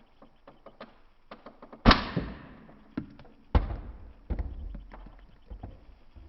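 A series of knocks and thuds, with two loud bangs about two and three and a half seconds in, each trailing off in a ringing decay.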